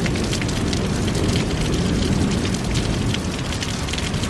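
Heavy rain pouring down steadily: a dense hiss full of close drop impacts, with a low rumble underneath.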